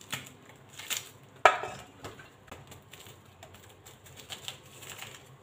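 Scattered light taps and clicks, with one sharper knock about a second and a half in: jackfruit bulbs being handled and set into a steel bowl.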